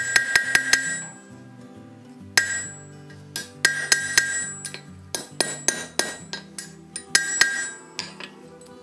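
Hand hammer striking a red-hot iron bar on an anvil in quick runs of blows, each with a bright metallic anvil ring; the blows stop near the end. Acoustic guitar music plays underneath.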